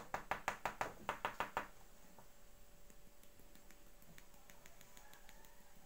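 Rapid light tapping on a framed glass panel by hand and a glitter tube, about seven taps a second. It stops about a second and a half in, leaving a few faint ticks.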